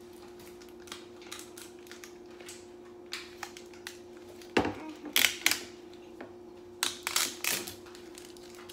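Plastic projector night light being handled and turned over in the hands: scattered clicks and knocks, with a louder knock about halfway through and a cluster of clicks near the end. A steady low hum runs underneath.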